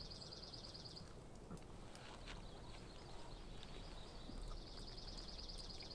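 Quiet background with a bird's high, rapid trill, once at the start and again near the end, and a few faint clicks.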